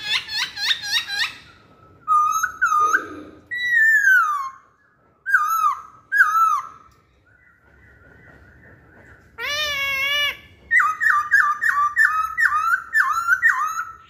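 Caged black-throated laughingthrush (poksay Hongkong) singing loud whistled phrases: quick repeated notes, slurred falling whistles, a lower harsher call about two-thirds through, and a fast run of repeated notes, about four a second, near the end.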